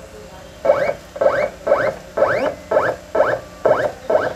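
Vinyl cutting plotter's feed motors whirring in short bursts, about two a second, each one rising quickly in pitch, as the machine drives the red radium sheet through its rollers.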